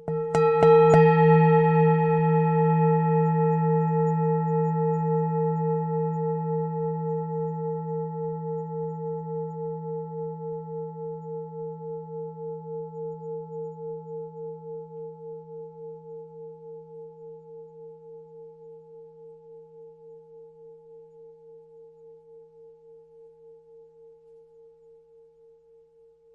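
Tibetan singing bowl struck near the start, then ringing out with a low hum and several higher overtones that waver in a steady pulse and fade slowly over about 25 seconds.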